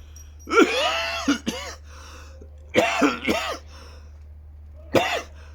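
A man with a cold coughing loudly in three fits, about five throaty coughs in all. The coughing comes from a chest and throat cold or flu bug.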